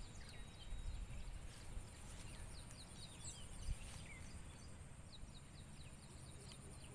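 Outdoor ambience: many short, high chirps from birds, repeating throughout, over a steady high-pitched insect buzz and a low rumble.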